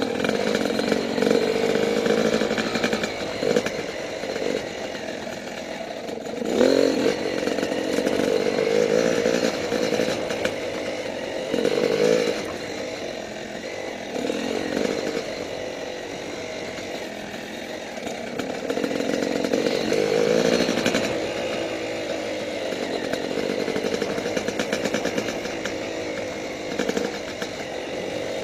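Yamaha YZ250 dirt bike's single-cylinder two-stroke engine under way on a trail. It revs up and falls back over and over as the throttle is worked, its pitch climbing and dropping every few seconds.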